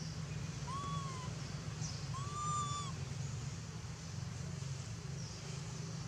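Two short animal calls, each rising then falling in pitch, the second a little longer, about a second and a half apart, over a steady low hum, with a few faint high chirps.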